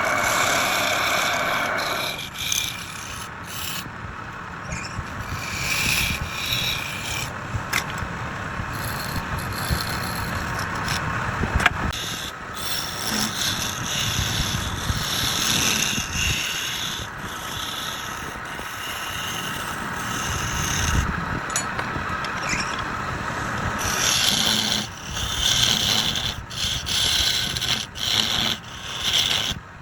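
Wood being worked on a lathe: a tool scraping and rubbing against the spinning wood, in irregular strokes that keep changing in loudness.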